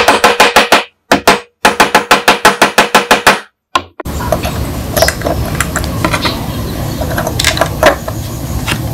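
A loud, rapid run of sharp clicks, about eight a second, that stops and starts abruptly for the first four seconds. After that comes a steady hiss with scattered light clicks as small pistol parts are handled and fitted to the frame.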